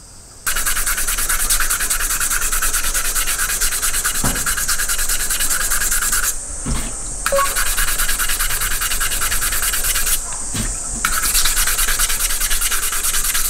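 320-grit waterproof sandpaper scrubbed rapidly back and forth over the bottom of a small metal sierra cup, wet-sanding it in the first, coarse polishing stage. The scratchy strokes stop briefly twice.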